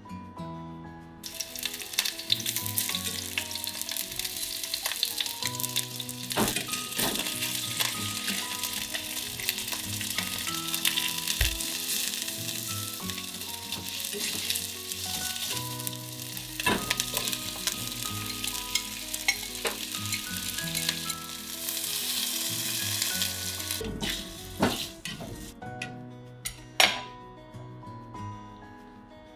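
Food frying and sizzling in a pot, stirred now and then with clicks of a utensil against the pot. The sizzle starts about a second in and stops suddenly about 24 s in, followed by a few knocks.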